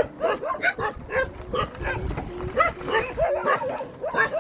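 Dogs yapping in a quick run of short, high barks and yips, about three a second.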